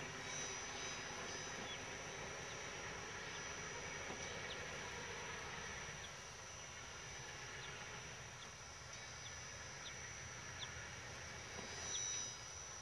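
Insects chirring with a steady high thin tone and small scattered chirps, over the faint low rumble of diesel-electric freight locomotives (a class 33 leading two class 35s) approaching slowly.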